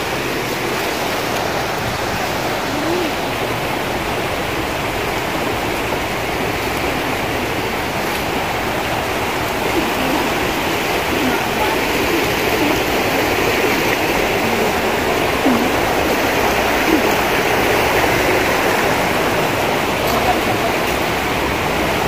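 River rapids: fast water rushing over rocks, a steady loud rush.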